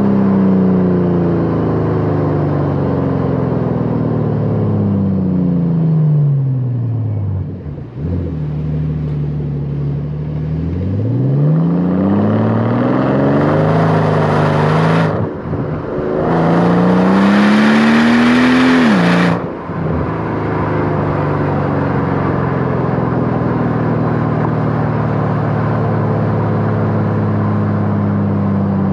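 2009 Mercedes SL65 AMG's twin-turbo V12 running through a Renntech exhaust while driven. The engine note falls for several seconds as the car slows, then climbs in two hard pulls split by a brief break about fifteen seconds in (an upshift), drops off sharply near twenty seconds as the throttle is lifted, and settles into a steady cruise.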